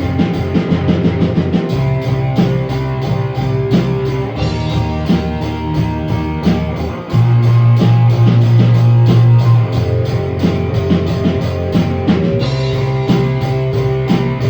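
Instrumental break of a rock band demo: guitar, bass guitar and drum kit playing with a steady beat and no vocals. The band swells louder for a couple of seconds about halfway through.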